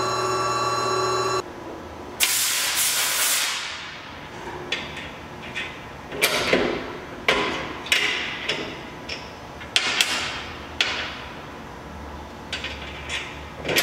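Metal clicks and short scrapes as a rifle action is handled and fitted onto a stainless barrel clamped in a barrel vise. A steady machine hum cuts off about a second and a half in, and a hissing spray follows about two seconds in.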